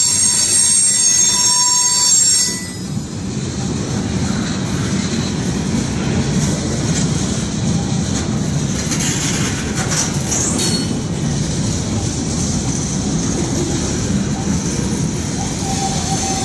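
Freight cars of a slow CSX train rolling past at close range. For the first couple of seconds their wheels squeal on the rail with a high, steady whistle that cuts off suddenly. After that the steel wheels rumble along the rail, with a few sharp clanks and screeches about ten seconds in and a short squeal near the end.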